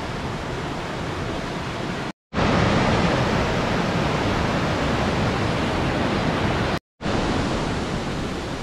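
Rushing water of a clear mountain river tumbling over rapids and small cascades: a steady, dense rush. It cuts out briefly twice where clips are joined and is loudest in the middle stretch.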